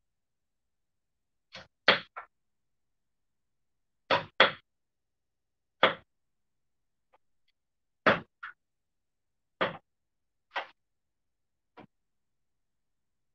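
Kitchen knife chopping carrots on a wooden cutting board: separate sharp knocks every second or two, some in quick pairs.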